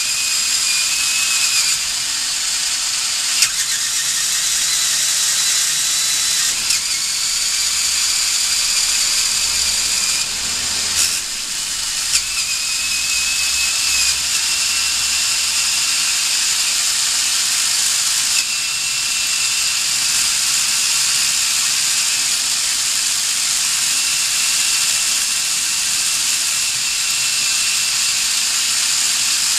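Motorised Lego Technic drivetrain running: plastic gears and engine pistons whirring with a steady high hiss and a thin whine. The whine changes pitch and level every few seconds, with a few light clicks.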